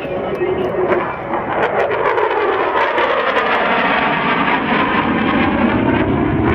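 F-16 fighter jet flying past in a knife-edge pass: a loud jet roar that builds, with a whine whose pitch falls steadily as the jet goes by.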